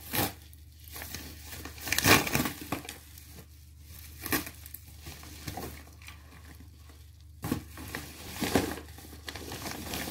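White plastic postal bag being torn open and crinkled by hand, in irregular rustling bursts, the loudest about two seconds in.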